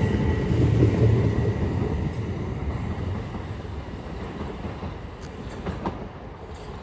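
Southeastern Class 375 Electrostar electric multiple unit pulling away and receding, its rumble fading steadily. A thin steady whine dies away in the first two or three seconds.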